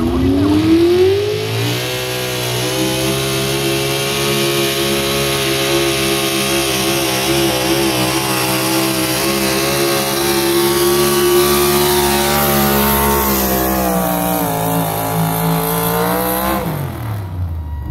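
Pickup truck engine in a truck pull, revving up at launch, then held at high revs with a slight waver as it drags the weight-transfer sled down the track. The revs fall away near the end as the run finishes.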